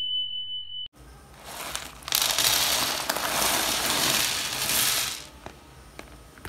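Small plastic building blocks pouring out of a plastic bag onto a heap, a continuous clatter lasting about three seconds and then a few stray clicks as the last pieces settle. Before it, in the first second, a steady high tone fades out.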